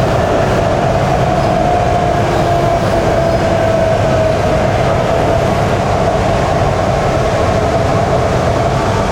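Shenzhen Metro Line 14 train running at speed: a steady rumble of wheels on rail with a steady whine.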